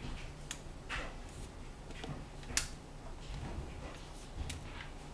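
Thick cake batter scraped out of a tilted stainless steel pot with a utensil, giving scattered light clicks and scrapes of metal and utensil against the pot.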